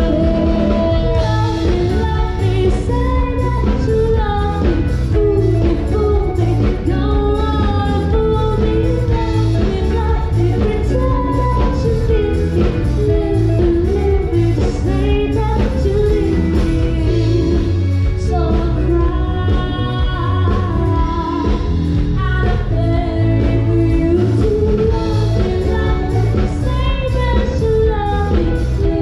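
A woman singing lead with a live pop band, a steady beat from drums and bass under guitar and keyboards.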